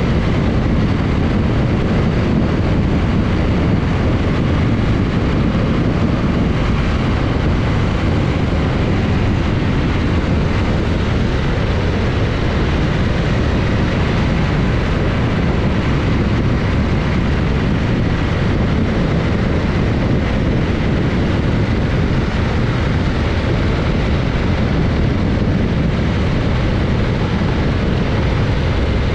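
Heavy, steady wind noise buffeting the microphone of a camera mounted on a moving BMW R1200GS Adventure motorcycle, mixed with the bike's road and engine rumble, with no distinct engine note standing out.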